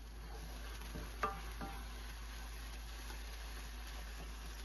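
Raw rice frying in oil in a nonstick pan, sizzling steadily while a wooden spoon stirs and scrapes through it, with one light knock about a second in. The rice is being toasted in the seasoned oil before liquid is added, so it gives off less starch.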